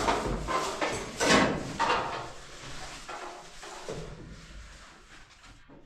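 Irregular scraping and rubbing strokes, loudest in the first two seconds and then fading.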